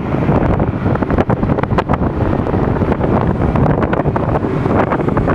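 Wind buffeting the microphone on a fast-moving motorboat, with a steady low rumble and the rush of water beneath, in short uneven gusts.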